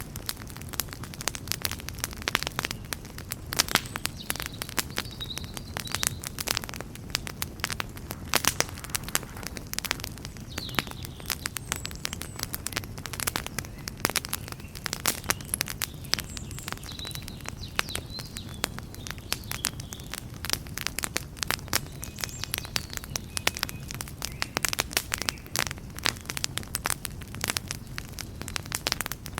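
Fire in a fireplace crackling steadily, with dense irregular sharp crackles and louder pops scattered throughout over a low steady rumble of the flames.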